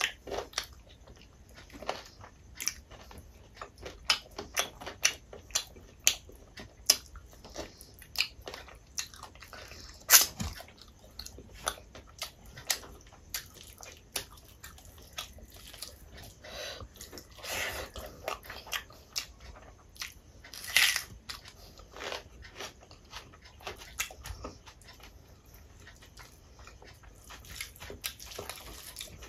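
Close-up eating sounds of rice and curry eaten by hand: chewing and wet lip smacks, with fingers squishing the curry-soaked rice. Irregular short clicks and smacks, the loudest a sharp click about ten seconds in.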